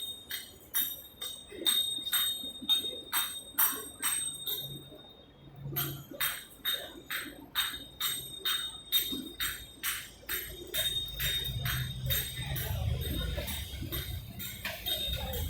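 Sharp clicks repeating steadily, about two to three a second, with a brief pause around the middle, over a low traffic rumble that grows in the second half.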